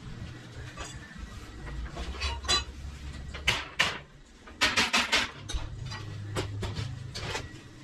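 Hard objects clinking and scraping in short, irregular strokes, with a quick run of four or five in the middle, over a low steady hum.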